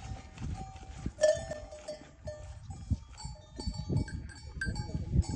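Small metal bells clinking irregularly, over low, irregular thuds; the bell strikes come thicker from about three seconds in.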